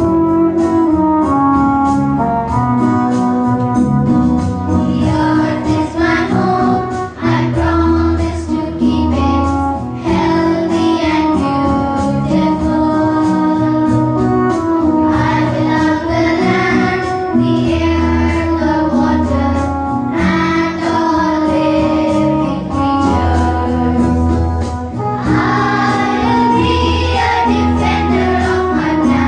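A group of children singing a song together over instrumental accompaniment with a steady beat.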